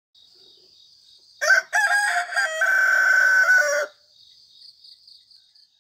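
A rooster crowing once, about a second and a half in: a few short notes, then a long held final note. A faint, high-pitched chirping runs underneath.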